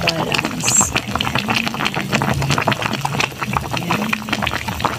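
Sauce boiling in a pan of ribs: a dense, steady run of small bubbling pops as the sauce reduces.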